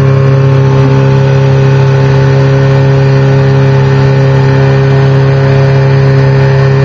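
An engine running close by at a steady speed, a constant unchanging drone.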